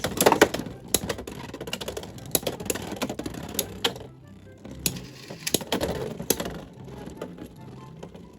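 Two Beyblade X spinning tops clashing in a plastic stadium: rapid, irregular plastic clacks and collisions, busiest in the first four seconds, with another flurry around five to six seconds in before they thin out.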